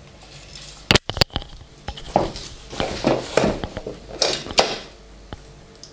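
Feeder fishing rod sections knocking and clattering against a cardboard box and each other as they are handled and laid down. There are two sharp knocks about a second in, then a run of irregular clatters and rustles.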